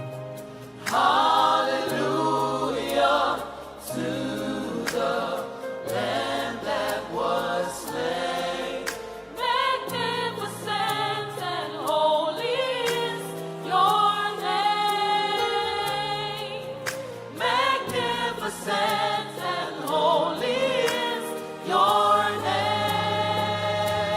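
Gospel choir singing together over an instrumental backing with a steady bass line.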